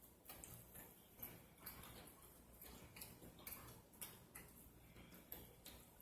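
Faint, irregular wet clicks and smacks of someone chewing a chicken wing, a few a second.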